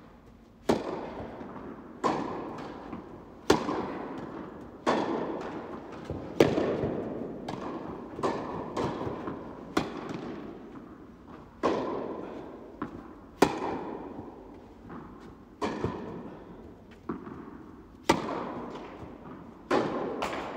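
Tennis serve and baseline rally: rackets striking the ball and the ball bouncing on the court, a sharp pop every second or so, each with a long echo in the big indoor hall.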